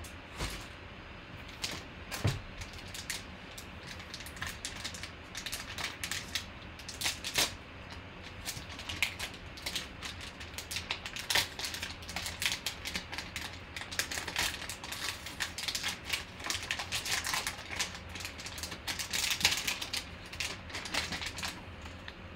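Foil trading-card pack being opened by hand and the cards inside, some in rigid plastic holders, being handled: a dense run of irregular crinkling and clicking.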